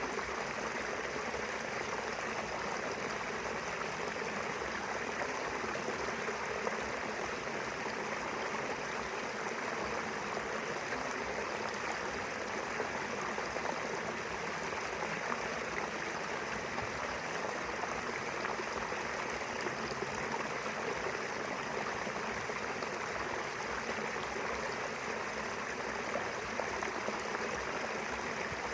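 River water running steadily over its bed, a continuous even rush with some trickling.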